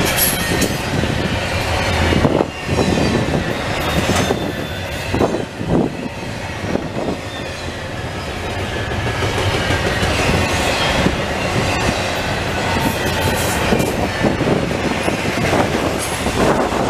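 Double-stack intermodal well cars of a freight train rolling past at speed: a steady rumble and rattle of steel wheels on rail, with irregular clicks over the rail joints and a faint high-pitched wheel squeal at times.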